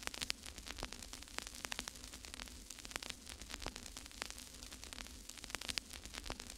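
Crackling static: irregular sharp clicks and pops over a steady hiss and a faint low hum.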